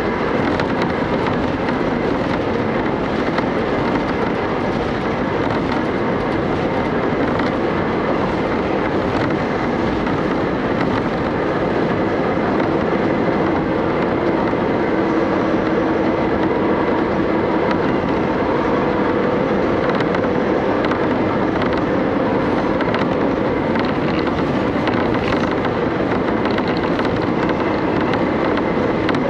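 KiHa 31 diesel railcar running along the line, heard from inside the passenger cabin: a steady mix of engine and wheels on the rails.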